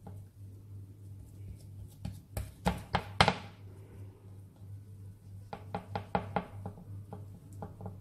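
A plastic spatula and hands tapping and knocking against a serving tray while soft halua is pressed into a square block. There are a few loud knocks about two to three seconds in, then a quick run of about eight light taps near six seconds, over a steady low hum.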